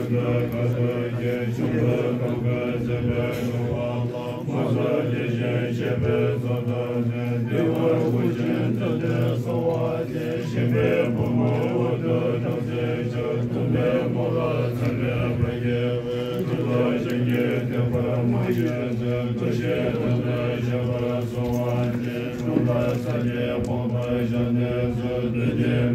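A group of Tibetan Buddhist monks chanting together in a low, steady drone.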